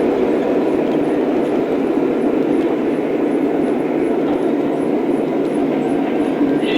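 Lionel O-scale model train running on its track: a steady rumble of motor and wheels, with faint regular ticking about three times a second.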